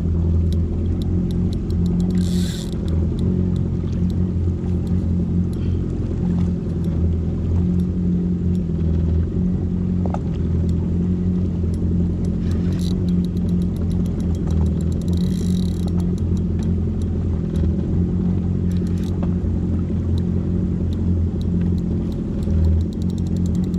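Yamaha WaveRunner FX HO jet ski's engine idling steadily with a low rumble, with scattered light clicks over it.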